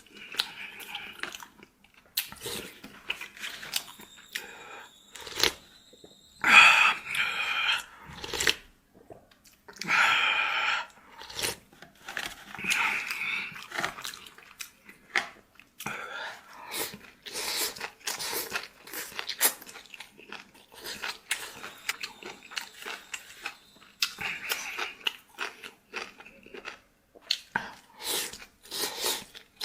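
A person chewing and crunching food close to the microphone, with many short wet clicks. There are a few louder, longer noisy stretches about 7, 10 and 13 seconds in.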